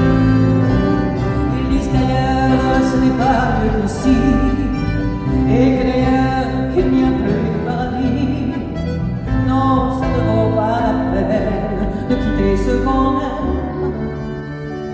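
A woman singing a French chanson live, with piano accompaniment; her melody wavers up and down over steady held chords.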